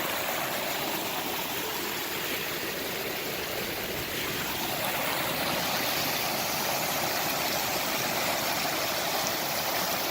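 Running water of a mountain stream or cascade, a steady even rush.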